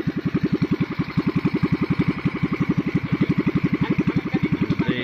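Loncin small gasoline engine, freshly fitted with a new carburetor, idling steadily at about a dozen firing pulses a second; a good idle while its air-fuel needle may be being tweaked.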